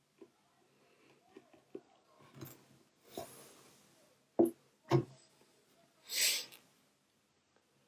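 Small clicks and taps from handling a phone and tools at a workbench, with two sharper knocks about four and five seconds in and a short hiss a little after six seconds.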